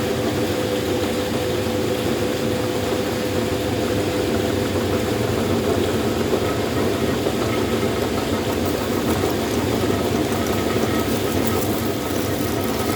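Electric meat grinder running steadily, its motor giving a constant hum.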